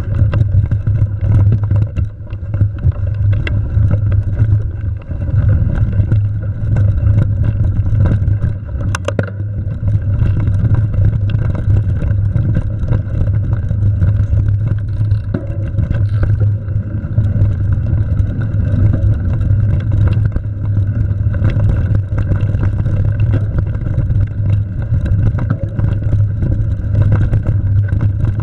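Mountain bike ridden along a dirt singletrack, heard from a camera mounted on the rider or bike: a steady, loud rumble of wind on the microphone and tyres rolling over packed dirt, with frequent small clicks and rattles from the bike over the bumps.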